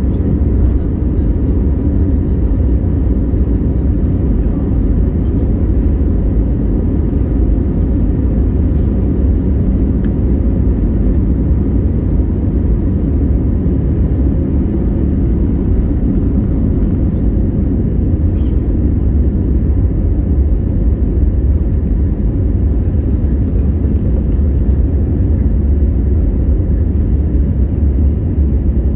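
A jet airliner's engines running with a steady low rumble that neither rises nor falls in pitch.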